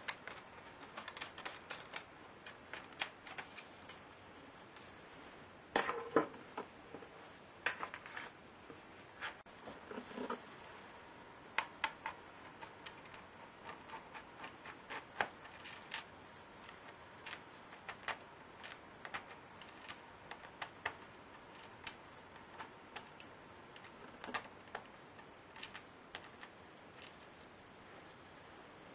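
Irregular small clicks and taps of tools, screws and plastic parts handled during laptop disassembly, with a few heavier knocks a third of the way in.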